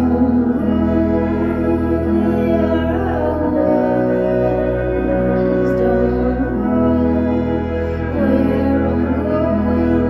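Live band music: sustained organ-toned keyboard chords over a low bass, with acoustic guitar. The chord shifts about a third of the way in and returns about two-thirds of the way through.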